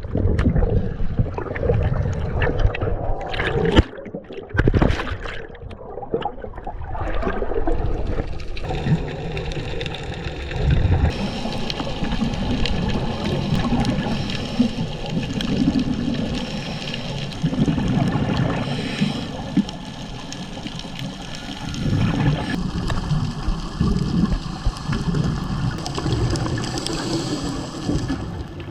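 Water sloshing and gurgling, then underwater bubbling: scuba divers' exhaled regulator bubbles rising in surges every two to three seconds over a steady underwater hiss.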